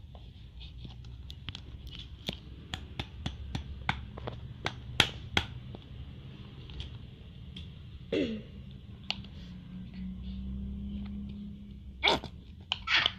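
Slime mixture being stirred in a container: a quick run of sharp clicks and taps as the stirrer hits the container, thinning out after about seven seconds. A short falling vocal sound comes about eight seconds in, and two short noisy bursts near the end.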